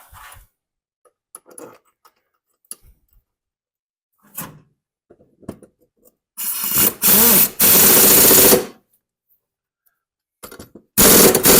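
A few light knocks as the mower blade is fitted, then an impact wrench rattling in two bursts tightening the blade bolt, the first about two seconds long with a brief break, the second about a second near the end.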